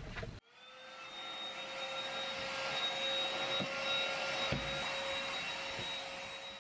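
Cordless stick vacuum cleaner switched on and running. Its motor winds up to a steady high whine over the rush of suction, with a couple of light knocks partway through.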